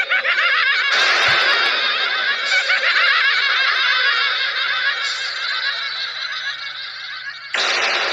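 High-pitched laughter, many short squeaky rises and falls overlapping, cutting in and out abruptly about a second in and near the end.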